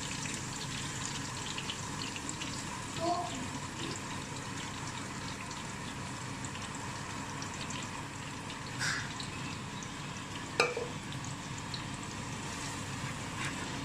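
Steady sizzle of oil frying in a cooking pot on the stove, with a single sharp click a little past the middle.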